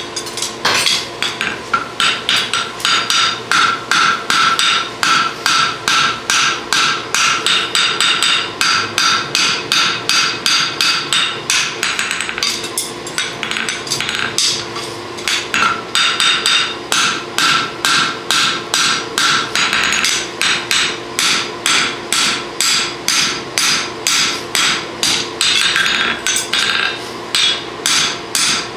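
Hand hammer striking a hot steel draft horseshoe on an anvil in quick, steady blows, about three a second, each with a metallic ring, while the toe of the shoe is cleaned up. A brief pause about halfway through.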